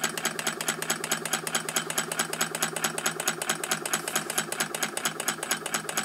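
Small model Stirling hot-air engine with a Scotch yoke crank, running at speed with a rapid, even mechanical ticking.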